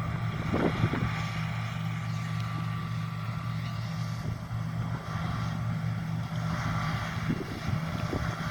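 John Deere T670i combine harvester running as it cuts: a steady low engine drone with a thin high whine over it, and a few brief knocks near the start and near the end.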